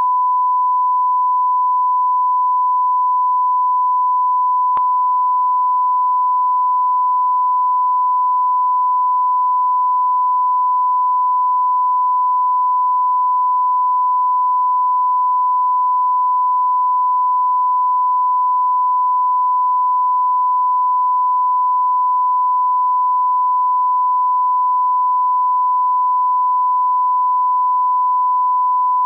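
Steady electronic test tone at a single pitch, held unbroken and loud: the reference tone that leads an exported video edit.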